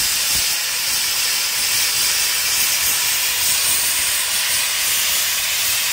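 Fire-tube steam boiler venting steam from its top fittings: a steady, loud hiss.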